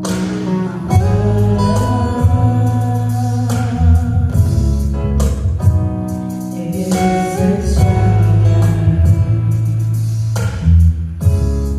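Worship song played on strummed acoustic guitar, with a singing voice.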